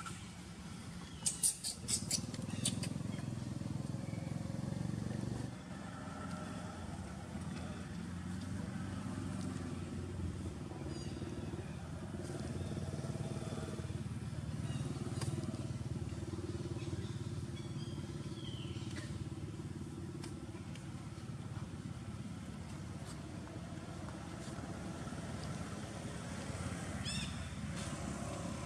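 An engine runs with a steady low drone, with a few sharp clicks about a second in and some short high chirps near the end.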